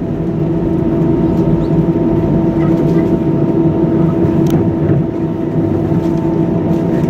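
Steady cabin drone of an Airbus A319 airliner taxiing, its jet engines running at taxi power, with a constant low hum throughout.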